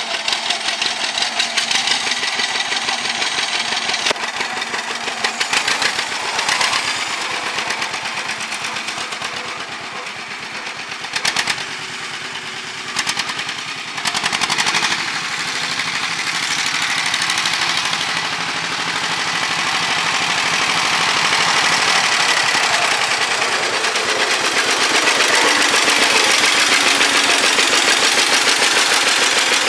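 John Deere 50's two-cylinder engine running with a steady, evenly spaced exhaust beat as the tractor drives; the sound grows louder over the last several seconds as it comes close.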